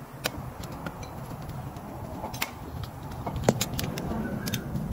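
Scattered sharp metallic clicks and clinks of hand tools and brake parts being handled, about ten in all, the loudest about three and a half seconds in, over a low steady background rumble.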